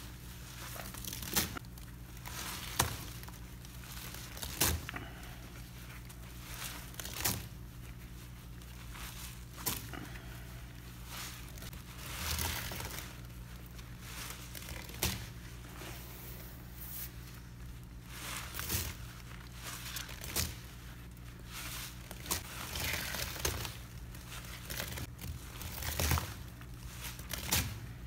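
Rubber-gloved hands squeezing and wringing soap- and paste-soaked kitchen sponges, giving wet crackly squelches of foam, with a sharp squeeze about every two seconds.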